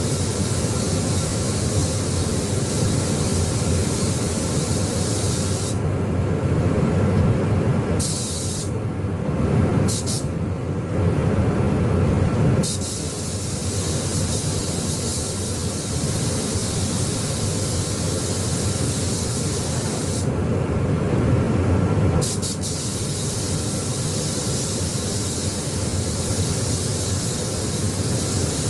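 Paint spray gun hissing as it sprays, the hiss stopping and restarting several times as spraying pauses, over a steady low rumble.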